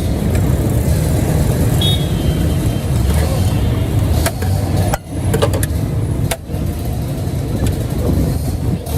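Steady low rumble of busy street noise, with a few sharp clicks or knocks in the middle and two brief dips.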